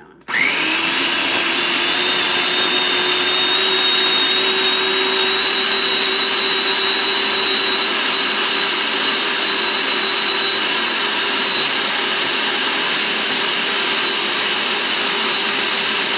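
Food processor motor switched on about half a second in, whining up to speed and then running steadily at one pitch as it purees a thick mash of cooked yam, coconut oil and honey.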